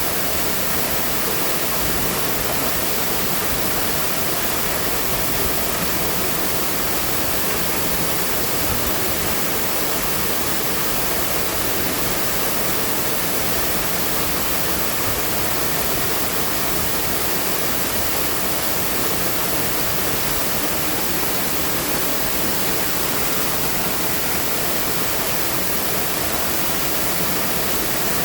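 Waterfall: falling water rushing in a steady, unbroken hiss, with no change in level.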